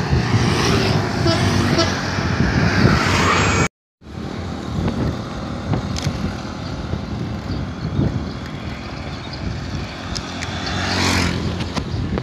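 Wind rushing over a phone microphone carried on a moving bicycle, with steady road noise. The sound breaks off for a moment about four seconds in, and a louder rush swells and fades near the end.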